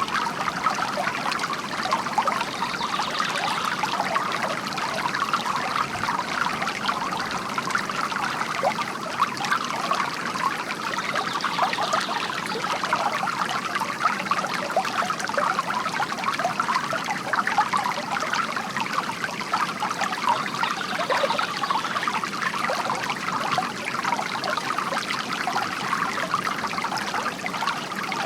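Bamboo water fountain with water trickling and splashing in a steady, unbroken stream.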